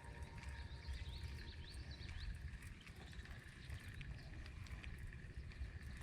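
Faint outdoor ambience: a bird gives a quick run of short rising chirps in the first two seconds, over a steady low rumble.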